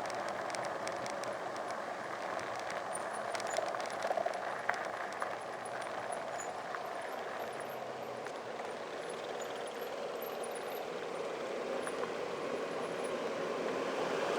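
Steady rolling and riding noise of a bicycle moving along a road, with a few short clicks and rattles about three to five seconds in.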